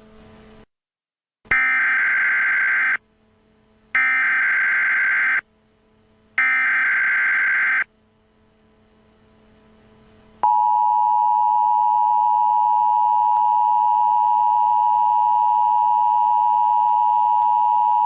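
Emergency Alert System header: three loud data bursts of about a second and a half each, a second apart. After a short pause comes the steady two-tone EAS attention signal, which holds for about eight seconds. Together they signal the start of an emergency alert broadcast.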